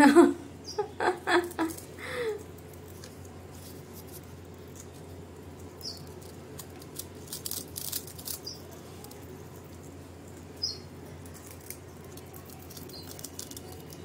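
Alexandrine parakeets biting and chewing pieces of fruit: soft, scattered crunches and clicks of their beaks on the fruit. A few short, louder sounds come in the first two seconds.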